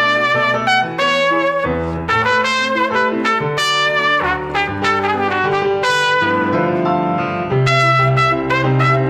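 Band music with a trumpet carrying a quick melodic line over a moving bass line.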